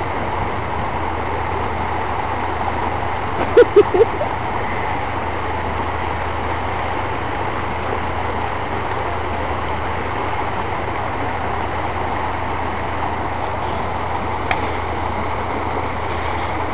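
An engine running steadily, with a short three-beat laugh about three and a half seconds in and a single faint click near the end.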